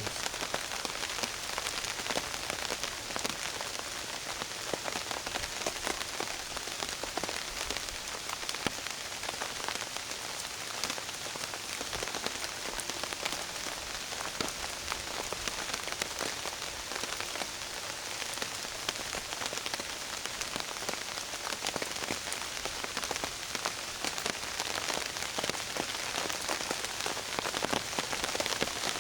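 Steady rain falling on a tarp, an even hiss dense with small drop hits.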